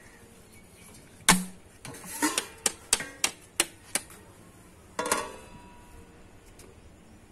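A stainless steel cooking pot set down on a clay wood-fired stove, with a sharp knock about a second in and then a run of short metallic clicks and knocks. About five seconds in comes a scraping clatter as its steel lid is laid down.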